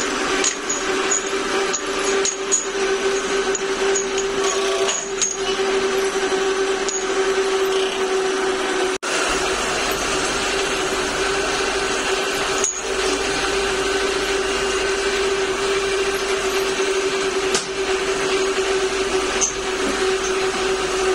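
A workshop machine's electric motor running with a steady hum, with scattered light metallic clinks of steel parts being handled.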